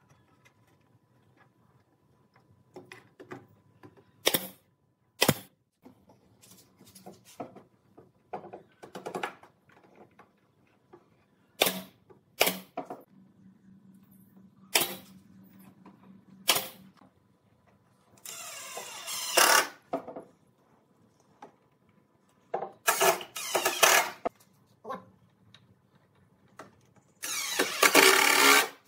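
Pneumatic nail gun firing single sharp shots into a pine frame, about six of them, then a cordless impact driver rattling in three short bursts as it drives screws. The last burst is the loudest.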